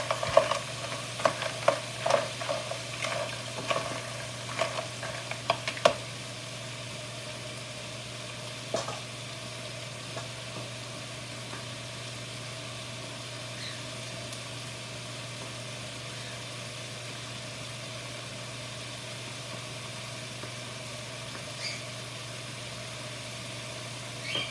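Mussel and clam shells clattering in a skillet as they are stirred with a wooden spoon for about the first six seconds, with one more knock a few seconds later. After that the pan goes on sizzling steadily over the gas burner.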